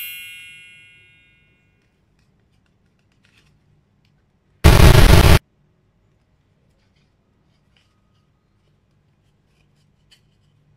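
Added editing sound effects: a bell-like chime with several tones fades out over the first second, then a loud, harsh burst of noise lasts just under a second about halfway through. Otherwise near silence.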